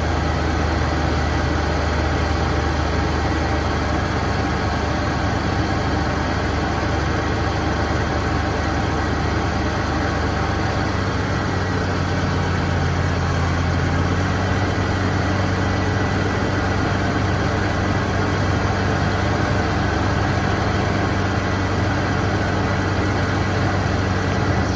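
Toyota Land Cruiser's 1FZ-FE inline-six petrol engine idling steadily.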